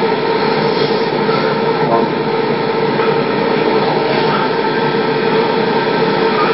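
Steady hiss and hum with a constant low tone, unchanging throughout; no speech.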